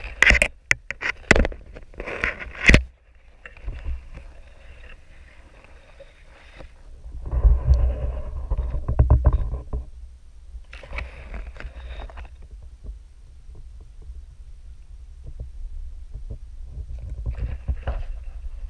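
Underwater sound picked up by a GoPro in its waterproof housing: a muffled low rumble, with a cluster of sharp knocks and clicks in the first three seconds and a few spells of rushing noise later on.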